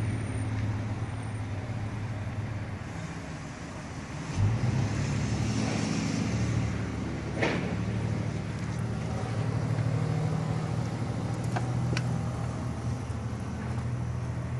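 Acorn stairlift's drive motor running with a steady low hum as the chair travels along its rail on a replaced single battery. There is a thump about four seconds in and a few sharp clicks later on.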